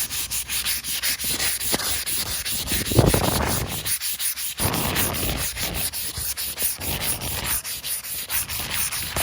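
400-grit sandpaper rubbed by hand over chalk-painted wood in quick back-and-forth strokes, smoothing the paint toward a glass-like finish. The scratching eases briefly about four seconds in, then carries on.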